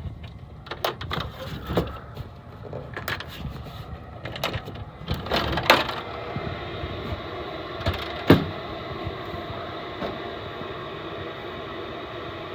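Knocks and clicks of handling at a gas furnace, then about six seconds in a steady motor hum starts up and runs on, with one sharp click a couple of seconds later: the Trane SV92 furnace beginning its start-up cycle.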